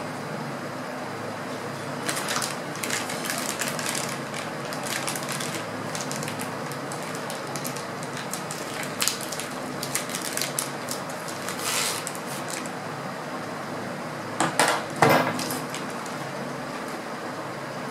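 Air-rifle parts being handled and set down on a marble tabletop: scattered small clicks, clinks and rustling, with a few louder knocks about fifteen seconds in as coiled mainsprings are laid out. A steady background noise runs underneath.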